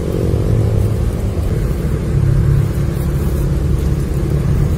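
An engine running steadily, a continuous low rumble.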